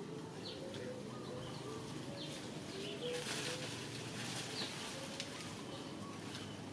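Birds chirping with short, scattered calls over a steady low background hiss, and a brief rustle about three seconds in.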